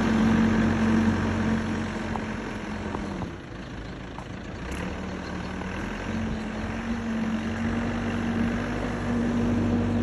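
Backhoe's diesel engine running steadily. Its pitch drops slightly and it quietens a little about three seconds in, then it picks back up about six seconds in.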